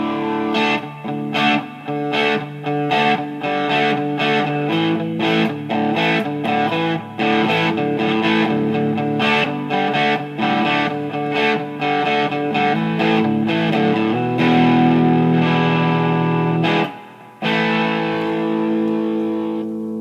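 Fender Stratocaster electric guitar played through a Bixonic Expandora distortion pedal into a Fender Bandmaster 40-watt tube amp's clean channel: distorted chords and riffs, with long held chords late on, a brief stop about three-quarters of the way through, then playing again.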